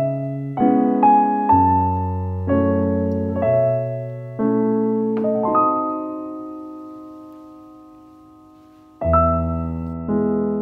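Background music: a solo piano playing slow chords over a bass line, one chord about halfway through left to ring and fade for a few seconds before the next is struck.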